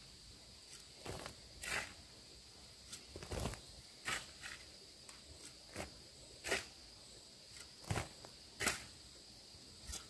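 A series of irregular scuffs and soft thuds, roughly one a second and unevenly spaced, like steps or handwork on dirt ground, over a steady high insect drone.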